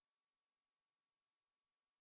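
Near silence: only a faint steady hiss with a very faint steady high tone.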